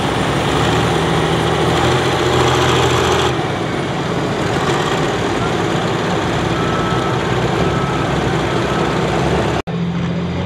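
Turbocharged diesel engine of an International 5488 pulling tractor running steadily, its upper hiss easing a little about three seconds in. After an abrupt cut near the end, another pulling tractor's diesel engine takes over.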